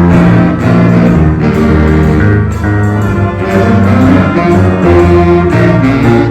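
A school instrumental ensemble playing a holiday piece, with held notes over a steady beat.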